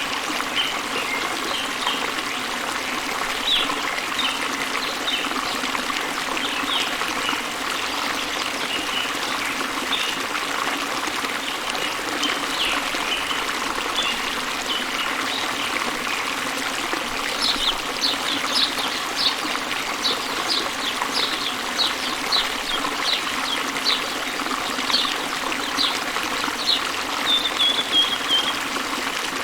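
Stream water running and trickling over rocks below a waterfall, a steady rushing sound, with many short high chirps over it, most of them in the second half.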